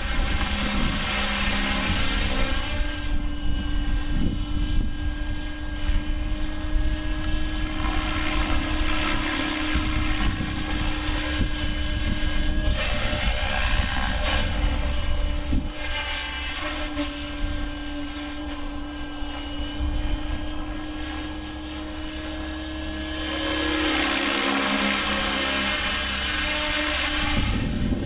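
Align T-Rex 600 radio-controlled helicopter in flight: a steady rotor and drivetrain whine whose pitch shifts now and then, swelling and fading as it flies about, over low wind buffeting on the microphone.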